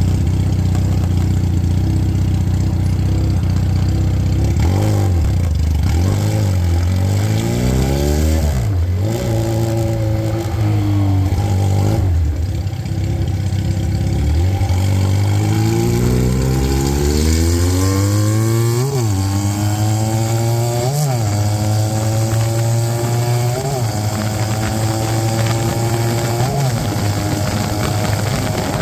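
Vitacci GTO 250cc motorcycle engine idling steadily, then pulling away and rising in pitch through the gears, dropping back at each upshift. It eases off around twelve seconds in, then accelerates again through several quick upshifts and settles to a steady cruise near the end.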